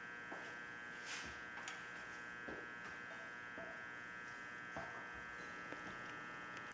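Steady low electrical buzz with many evenly spaced overtones, with a few faint scattered clicks and taps. The buzz stops near the end.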